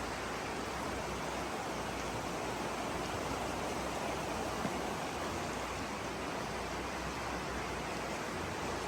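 River water rushing steadily: an even, unbroken hiss of flowing water.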